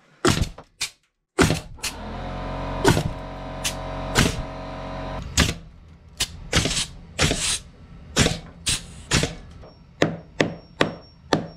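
Nails being driven into wooden floor joists: a few sharp strikes, a steady hum under the strikes for a few seconds, then a regular run of blows about two a second, as when a joist hanger is nailed off.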